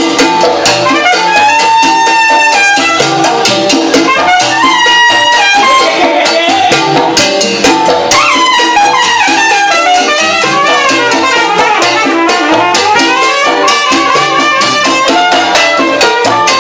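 Salsa orchestra playing live, the trumpet section leading over piano and percussion. The horns hold long notes at first and move into faster melodic lines about halfway through.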